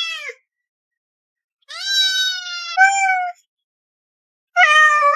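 A cat meowing: a meow that ends just after the start, a long drawn-out meow of nearly two seconds in the middle, and a short one starting near the end, with complete silence between them.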